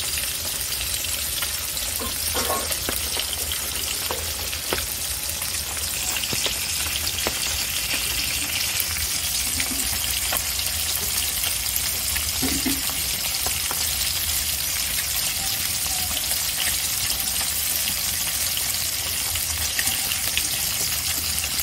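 Pieces of silver carp shallow-frying in hot oil in a metal karahi: a steady sizzle with scattered crackles and pops, over a low steady hum.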